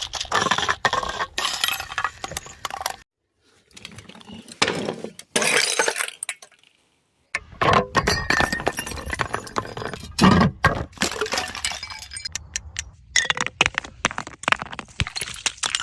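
Glass bottles breaking again and again: sharp crashes followed by the clinking of shards. The sound cuts off completely twice, for about a second each time.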